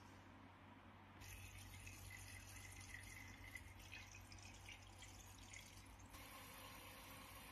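Near silence: a faint steady hiss that gets slightly louder about a second in.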